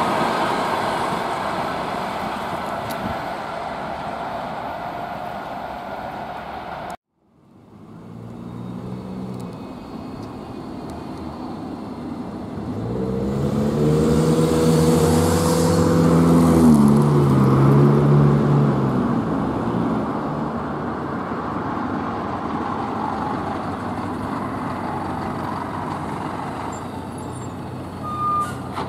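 ET2M electric train pulling away and fading, cut off suddenly about seven seconds in. Then a 'Lastochka' electric train passing, with a pitched whine that rises to its loudest in the middle and falls in pitch as it goes, then a steady rumble.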